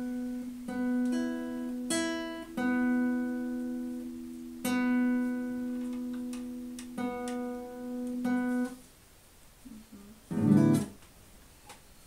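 Classical guitar being tuned: the two top open strings are plucked again and again and left to ring together while she checks the pitch. Near the end comes one short, louder thump.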